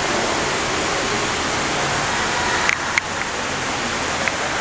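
Steady rush of water churning and splashing into a fish pool, with two sharp clicks close together about three seconds in.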